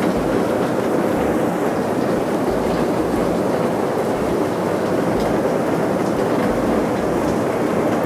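Domestic cat purring close to the microphone while being stroked: a loud, steady rumble that swells and eases with each breath.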